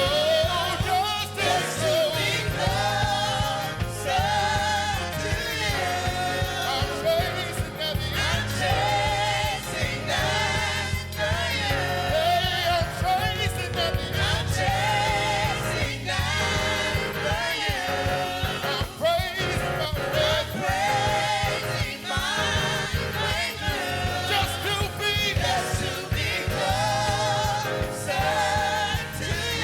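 Live gospel praise music: voices singing with vibrato over a band with a steady bass line.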